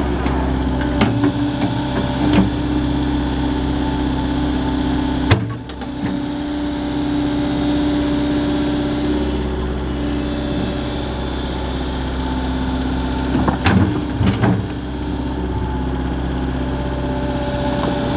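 JCB JS130 tracked excavator's diesel engine running steadily, with occasional sharp clanks: a few in the first five seconds and a cluster about three-quarters of the way through.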